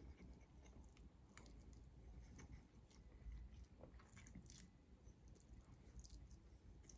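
Faint close-up mouth sounds of eating spaghetti: chewing with scattered soft wet clicks as strands are drawn into the mouth.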